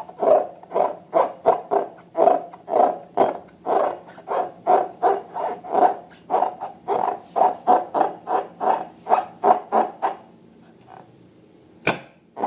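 Slime being squeezed and worked by hand, a quick rhythmic series of squelches about three a second that stops about ten seconds in, then a single sharp click near the end.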